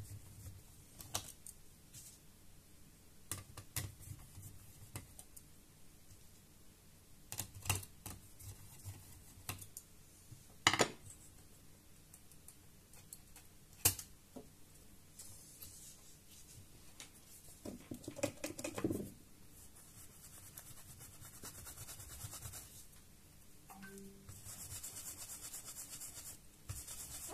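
Small screwdriver working the screws of a laptop's copper heat pipe, with scattered light clicks and scrapes of metal against the mainboard, then soft handling and rustling as the heat pipe is lifted out and set down.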